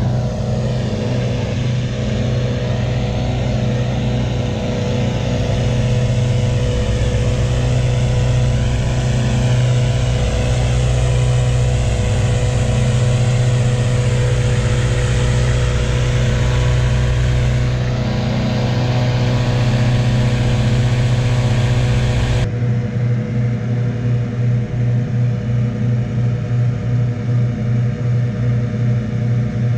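Engine-driven balloon inflator fans running steadily at full power. About two-thirds of the way through the sound changes abruptly to a duller, throbbing run with a regular pulse.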